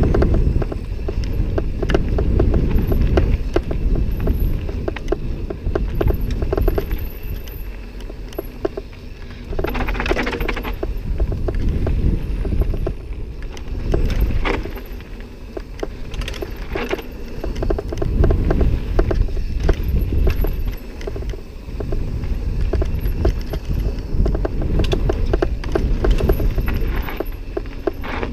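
Mountain bike descending a dirt and gravel trail: wind buffeting the helmet-mounted camera's microphone, with the tyres crunching over gravel and the chain and frame rattling over the bumps. The wind noise swells and fades with speed.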